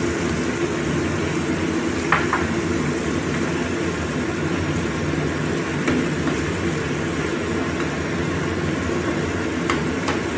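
Stir-fry sauce simmering in a wok and stirred with a wooden spatula, over a steady low hum, with a couple of light knocks, about two seconds in and near the end.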